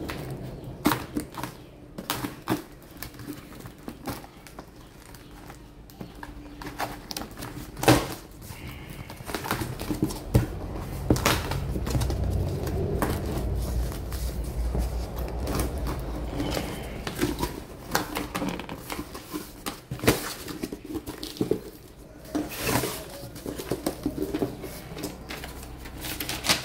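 Hands opening a parcel and handling plastic lure packaging: irregular clicks, taps and crinkles, with a stretch of low rumbling handling noise midway through.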